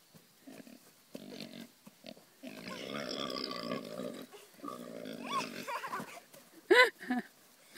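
Pigs grunting and squealing in rough bursts while a child climbs on and rides one. Near the end come two short, loud, high-pitched cries.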